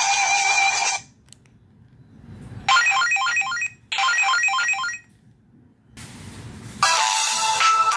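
Avio A302 phone's built-in ringtones playing through its speaker: a melodic electronic ringtone stops about a second in, then a trilling telephone-bell style ring sounds twice, each about a second long, and another melodic ringtone starts near the end.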